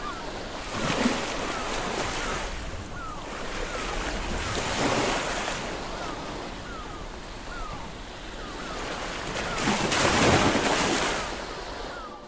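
Sea waves washing in slow swells, loudest near the end, with faint short falling gull cries over them.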